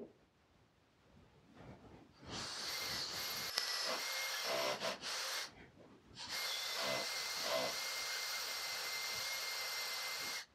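Cordless drill boring a 9/16-inch hole through a plywood reel, its motor whining steadily in two runs, the first about three seconds long and the second about four, with a short pause between.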